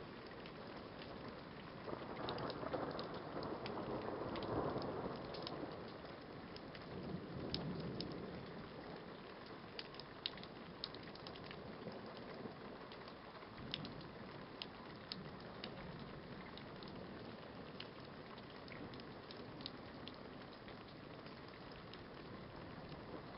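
Steady rain during a night thunderstorm, with scattered sharp ticks of drops striking a surface. A low rumble of thunder swells about two seconds in and dies away, then comes again more briefly around seven seconds.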